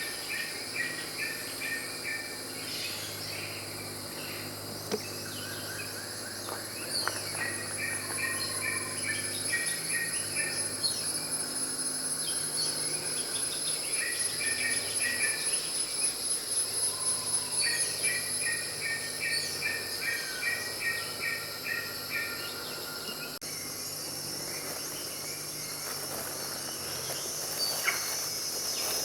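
Rainforest insects buzzing steadily, with a bird giving four short series of rapid, evenly spaced notes.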